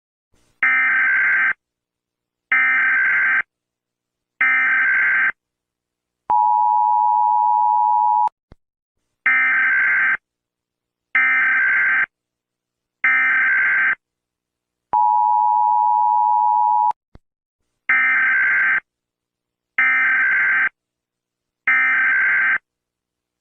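Emergency Alert System signals: three harsh digital SAME header data bursts about a second each, then a two-second two-tone attention signal. The pattern repeats three times, and the tone starts again at the end. These are the coded header and alert tone that open an Emergency Alert System broadcast.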